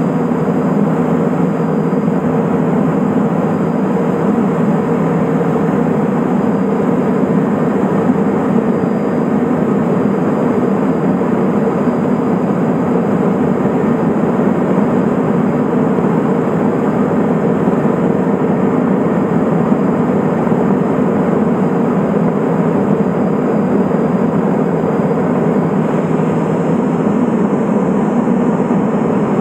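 Cabin noise of a Cessna P210 Silver Eagle in flight: its Rolls-Royce 250 turboprop engine, propeller and airflow make a loud, steady drone heard inside the cockpit.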